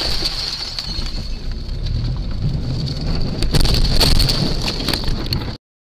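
Interior noise of a moving car picked up by a dashcam: road and engine rumble with wind noise and a steady high-pitched whine. A few sharp knocks come about three and a half seconds in, and the sound cuts off abruptly near the end.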